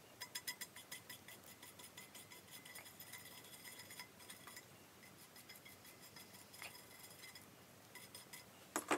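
Small cleaning tool scrubbing and scraping at the breech end of a Beretta 686 Silver Pigeon's steel shotgun barrels to loosen caked carbon, making faint, rapid metallic clicks with a light ring. The clicks come thick and fast for the first few seconds, then thin out, with one louder click near the end.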